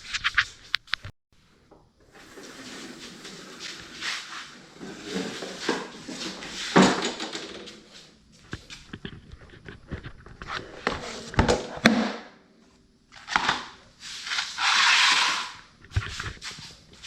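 Scattered knocks, clicks and scraping from handling tools and equipment, with no engine or power tool running. About a second near the end a louder noisy rush stands out, followed by a knock.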